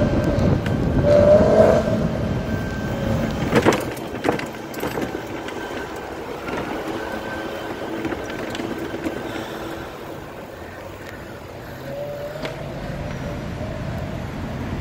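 BMW E90 M3's 4.0-litre V8 engine under way, its note rising as it accelerates, then running at a steadier note and rising again about twelve seconds in. Two sharp knocks come about four seconds in.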